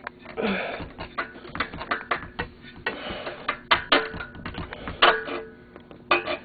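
Engine parts and tools being handled on a workbench: a run of metal clicks and knocks with short scraping and rattling stretches, a few sharper knocks about halfway through and near the end.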